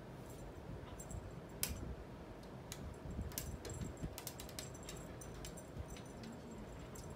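Irregular light clicks and small metallic jingles as a cat wand toy and a mesh net are swung about over carpet. The clicks are thickest in the middle few seconds.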